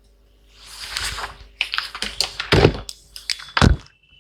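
Hands handling small laptop parts and wires on a workbench: a brief rustle, then a run of clicks and knocks, with two heavier thumps in the second half.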